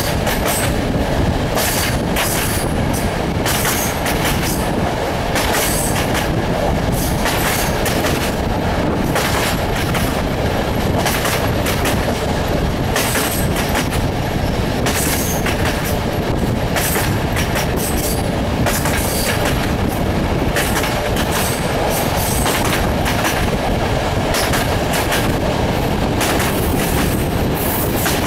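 Passenger train running steadily along the line, heard from an open carriage window: a continuous rumble of wheels on rails with frequent irregular clicks over the track.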